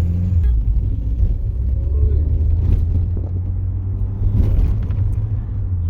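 Steady low rumble of a car on the move, with faint voices under it.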